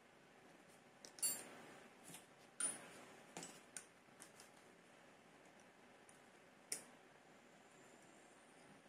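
Metal spray gun parts and hand tools clicking and knocking as they are handled and set down on cardboard: a string of light, separate clicks in the first few seconds, the sharpest about a second in, and one more a little before the end.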